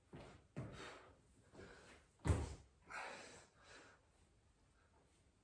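Bodyweight burpee with push-ups on a hard stone floor: a few soft knocks and breaths, then a loud thud about two seconds in as the body drops into the plank, followed by a couple of softer sounds during the push-ups.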